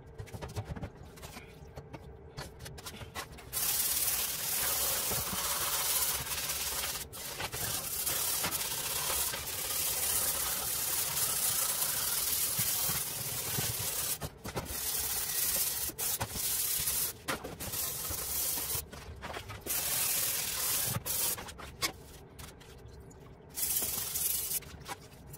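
A rusty steel license plate being scrubbed by hand in a tub of foamy liquid: a steady scrubbing noise that starts a few seconds in, with a few short pauses, and a last brief scrub near the end.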